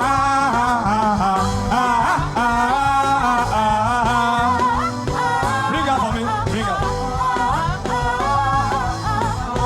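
A man's wordless chanting voice, sustained and wavering in pitch, over steady instrumental accompaniment.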